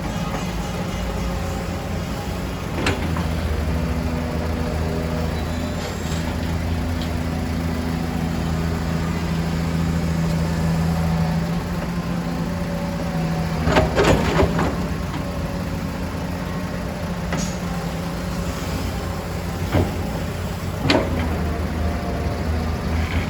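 Heavy diesel engine running steadily with a low hum, with a few sharp knocks, the loudest a cluster a little past halfway.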